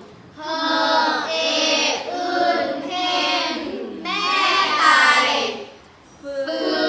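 Children's voices chanting in unison in a sing-song reading voice, sounding out English phonics vowel sounds and spelled words in drawn-out phrases. There is a short pause about five and a half seconds in before the chanting starts again.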